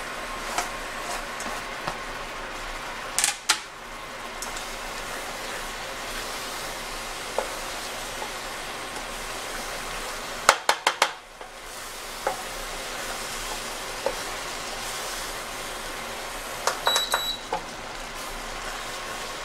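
Egg sauce of scrambled egg, tomato and onion frying with a steady sizzle in a stainless steel pot, while a wooden spoon stirs it and knocks against the pot. There is a sharp knock about three seconds in, a quick run of four about halfway through, and another cluster near the end.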